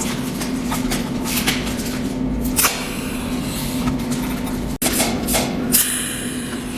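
Cold welding machine firing spot welds onto filler wire, a sharp zap about once a second at an uneven pace, over a steady low hum.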